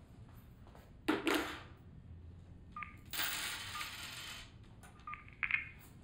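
Handling sounds at a table: a sharp clink or knock about a second in, a longer rustle of a plastic bag around three seconds in, and a few small light clinks near the end.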